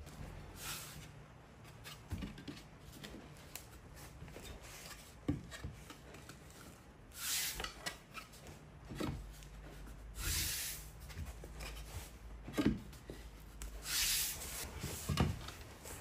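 Intermittent rubbing and scraping swishes with scattered light knocks: engineered-wood chevron flooring planks being handled and set into place.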